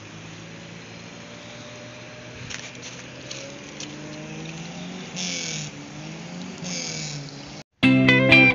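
A vehicle engine running steadily over rushing river water, its pitch rising and falling a few times as it is revved, with two short hissing splashes. Near the end it cuts off and guitar music starts.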